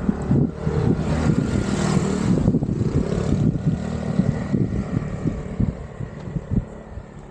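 A motor vehicle passing by. Its engine and tyre noise swells in the first few seconds, drops in pitch as it goes past, and fades, with wind buffeting the microphone throughout.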